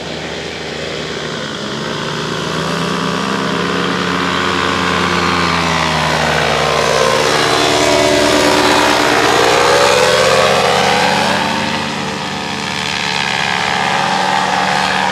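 Propeller engine of an ultralight flying machine, such as a powered paraglider, droning overhead. Its pitch sags and climbs back about two-thirds of the way through, it is loudest around the middle, and it fades briefly before swelling again near the end.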